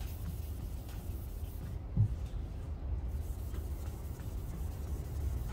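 Dry hand sanding of a painted car fender with K3000 fine-grit abrasive on a foam block and interface pad: a soft, steady rubbing back and forth, with one low thump about two seconds in.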